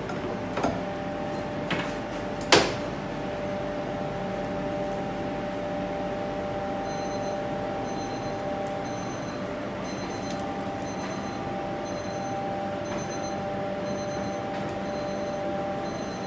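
Steady electrical hum of shop equipment, with three short metallic clinks in the first few seconds as a wire rack of buns is slid into a wooden display case, the last one the loudest.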